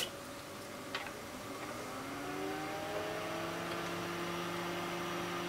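Two clicks, then a motor-like hum that rises in pitch for a second or so and settles into a steady hum.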